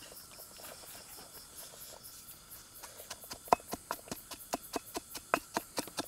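Crickets chirping faintly and steadily. From about three and a half seconds in, a stone pestle pounds a paste in a stone mortar, sharp knocks about four a second.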